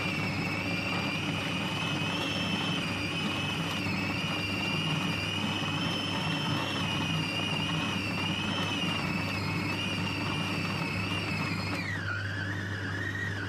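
Siemens food processor motor running steadily with a high whine, its blade grinding chilled ground pork and beef into a smooth paste for Vietnamese pork roll. The whine dips lower near the end.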